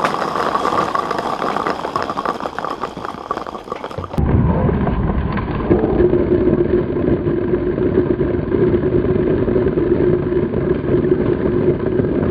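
Golf balls pouring from a plastic bucket and clattering as they bounce and scatter on a tile patio. About four seconds in, the sound turns into a deep, muffled rumble with a steady hum, the same clatter slowed down for a slow-motion replay.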